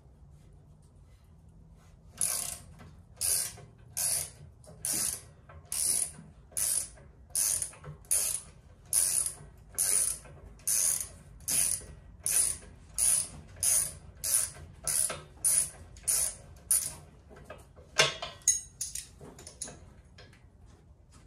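Hand socket ratchet being worked on a bolt in the tractor frame: about twenty short ratcheting runs, one on each back-stroke, coming a bit under one a second and slightly quicker toward the end. A few sharper clicks and a knock follow near the end.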